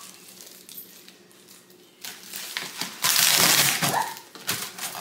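Plastic wrapping and packing material crinkling and rustling as parts are pulled out of a shipping box. It is faint at first, then loud from about three seconds in.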